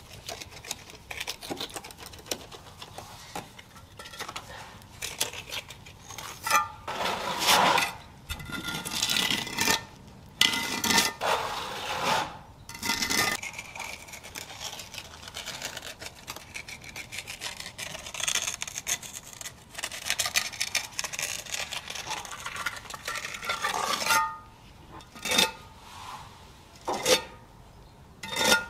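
A trowel scraping and working concrete in irregular strokes of a second or two, some strokes giving a short metallic ring.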